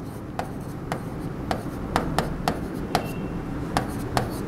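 Pen tip tapping and scraping on the glass of an interactive touchscreen board while handwriting, making a string of sharp irregular clicks, two or three a second, over a low steady hum.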